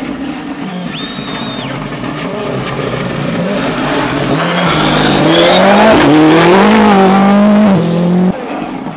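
Rally car's engine approaching at speed, getting steadily louder and climbing in pitch through several upshifts, then the sound falls away suddenly near the end.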